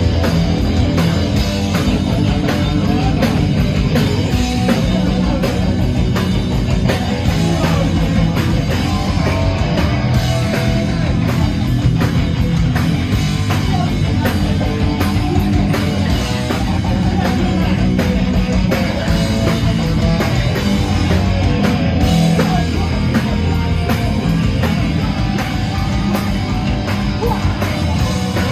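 Live punk-rock band playing loud: distorted electric guitars, bass and a drum kit pounding a steady fast beat, heard from the front of a small club.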